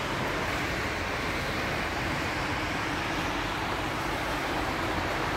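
Steady hum of city street traffic: a continuous, even noise with no separate events standing out.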